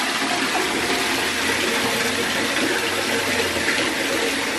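Bathtub faucet running steadily, its stream pouring into a tub already full of water.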